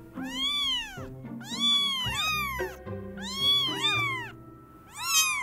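Three-week-old Cornish Rex kittens mewing: about six high mews, each rising then falling in pitch, some overlapping as more than one kitten calls at once.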